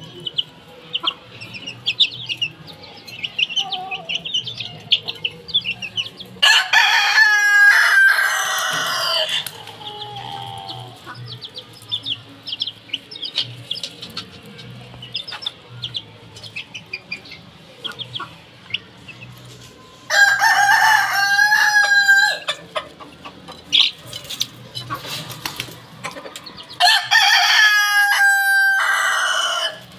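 Roosters crowing three times, each crow lasting two to three seconds, over continual clucking and cheeping from the flock.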